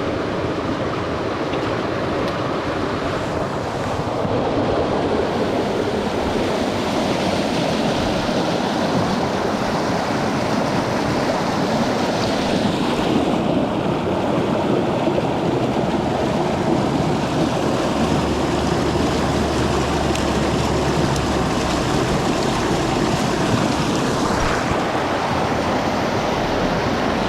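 Swift creek white water rushing over rocks close by, a steady loud hiss of running water.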